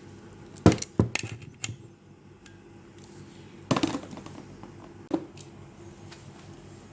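Small metal clicks and clatters of riv nuts and a hand tool being handled and pushed into place: a quick run of clicks about a second in, a short rattle near four seconds, and one more click about five seconds in.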